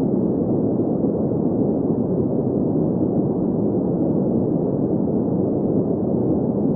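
Steady green noise: an even, unchanging hiss centred in the low-mid range, with little energy above about 2 kHz.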